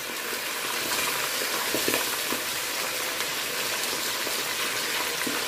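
Pieces of lionfish frying in hot oil in a pot: a steady sizzle with a few small pops.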